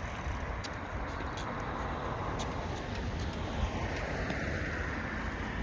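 Steady outdoor background noise with a low rumble, like distant road traffic, and a few light clicks.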